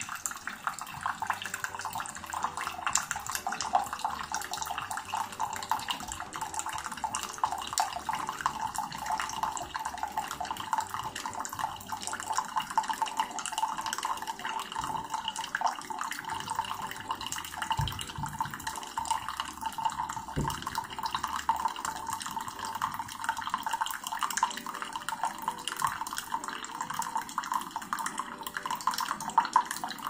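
Keurig K-Slim single-serve brewer dispensing coffee: a steady stream of hot coffee pouring from the spout into a ceramic mug as an 8-ounce cup brews.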